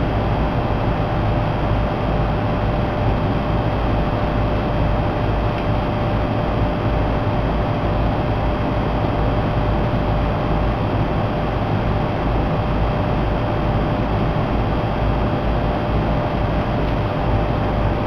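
HVAC air handler blower running steadily with a month-old pleated filter in place: an even rush of moving air over a low rumble, with a thin steady tone.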